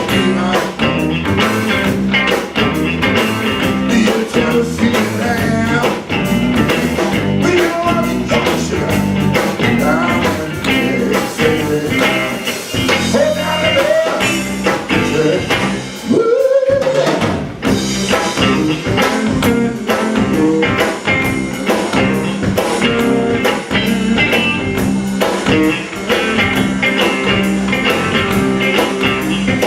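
Band playing a bluesy rock song: guitar and drum kit over a steady beat, with sliding notes about halfway through.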